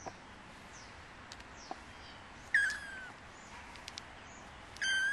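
A kitten mews twice, two short high-pitched cries about two seconds apart, with faint bird chirps in the background.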